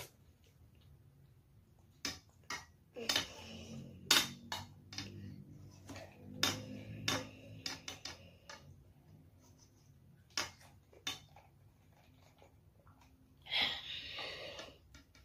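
Metal spoon clinking and scraping in a bowl, a scatter of light clinks, with eating and sipping sounds in between as the last of the ramen broth is spooned up.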